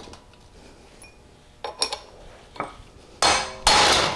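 Light metal clinks, then two hard hammer blows near the end on a 5/16 drift punch, each with a metallic ring. The blows drive a tight interference-fit pinion pin out of a Powerglide planetary gear carrier.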